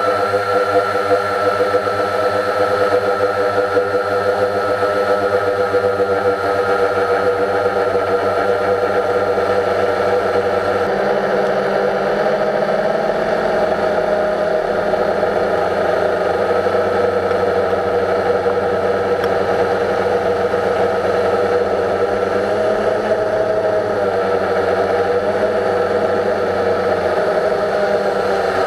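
Quadcopter drone's motors and propellers whirring, heard from its own onboard camera: a steady multi-pitched whine whose pitches drift slightly as the drone holds and shifts its position.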